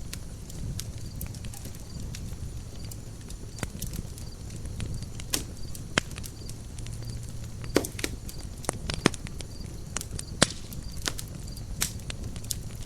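Campfire burning, the wood crackling with sharp, irregular pops over a low, steady rumble, a few pops louder than the rest.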